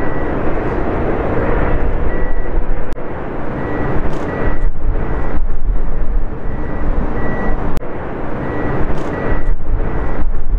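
Jet airliner engines in flight: a steady, loud rush of engine noise with a faint high whine that comes and goes.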